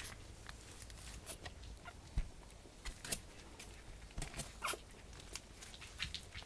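Month-old Japanese Chin puppies scuffling about: scattered light clicks and scratches of small paws and claws, with a brief higher sound or two midway.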